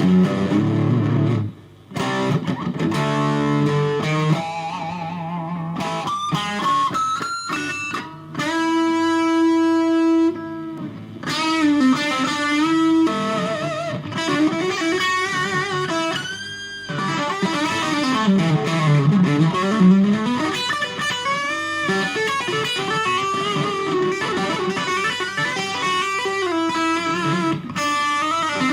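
FGN Stratocaster electric guitar, cable straight into a Fender Studio Valve SVH valve amp, playing single-note lead lines with string bends and vibrato. One note is held about a third of the way in, and a wide bend dips down and back up a little past the middle.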